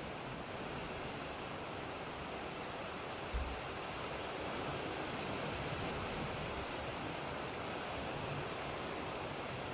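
Steady rain hiss from a thunderstorm recording, with one brief low thump about a third of the way in.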